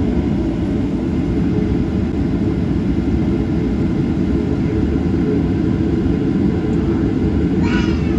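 Cabin noise of a Boeing 737-900ER, a steady low rumble from its CFM56-7B engines at idle while the jet holds on the runway before takeoff. A brief higher-pitched sound comes in about half a second before the end.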